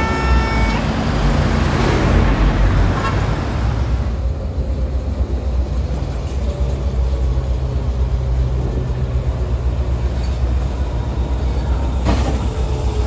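A short vehicle horn toot at the start, over the steady low rumble of a running vehicle engine.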